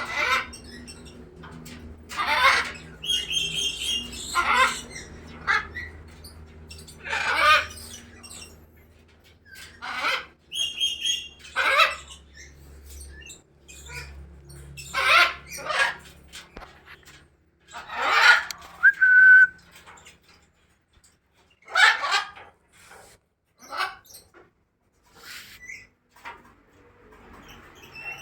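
Caged songbirds calling in short, loud, harsh bursts every two to three seconds, with a brief clear whistled note now and then.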